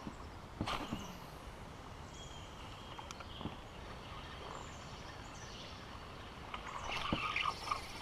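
Songbirds chirping in short calls over a quiet outdoor background, with a sharp knock about a second in and a few more knocks and clicks near the end.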